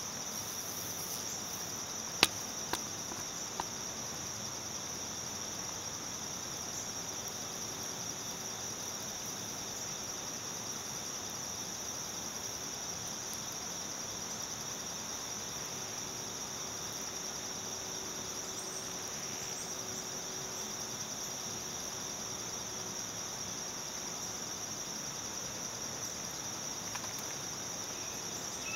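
Steady, high-pitched chorus of singing insects such as crickets, with three sharp clicks shortly after the start.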